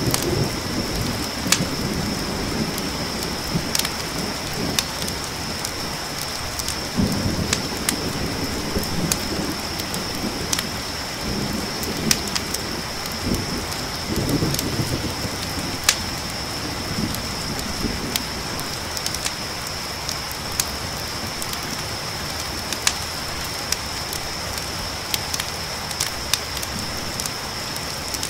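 Steady rain with several low rolls of thunder, mostly in the first two thirds. Under it runs a constant high chirring of crickets, with scattered sharp pops and ticks throughout.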